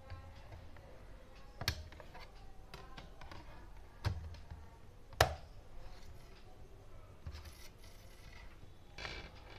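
Plastic CDs being handled on the open spindle of a portable DVD player: a few sharp clicks and taps as one disc comes off the hub and another is pressed onto it, the loudest click about five seconds in, with light scraping near the end.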